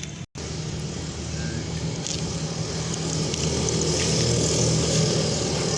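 A motor vehicle's engine running close by in street traffic, growing steadily louder over the few seconds as it draws nearer. The sound cuts out completely for an instant just after the start.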